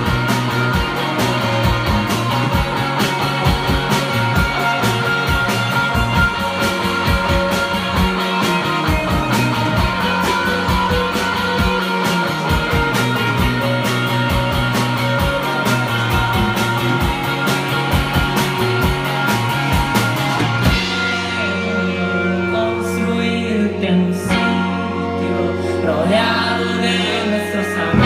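Live indie rock band playing through a PA: electric guitars and bass over a steady drum beat. About three-quarters of the way through, the drums stop and the guitars and bass carry on with held chords.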